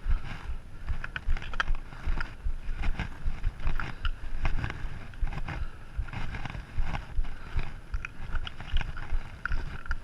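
Wind buffeting the microphone while riding a mountain bike, with the irregular clicking and rattling of the bike over a rough trail surface.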